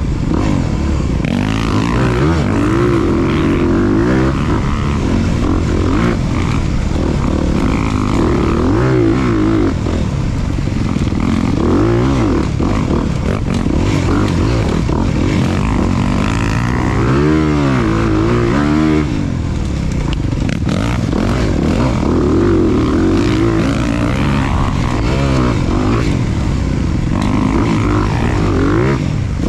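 Off-road motorcycle engine running hard as the bike is ridden, its pitch rising and falling over and over as the throttle is opened and closed.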